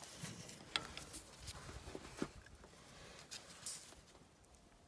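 A few faint clicks of a wrench on the brass fitting of a liquid-filled fuel pressure gauge as it is tightened, about a second and a half apart.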